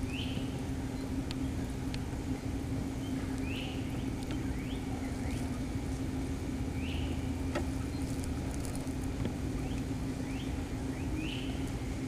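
A bird giving short, high chirps, one roughly every second or so, over a steady low hum.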